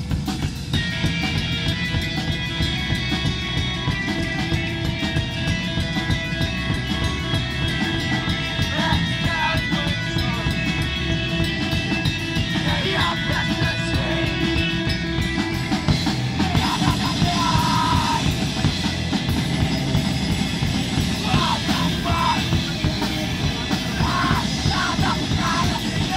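Rock band playing live: drum kit, electric bass and electric guitar, with a vocalist yelling into a handheld microphone in stretches over the band.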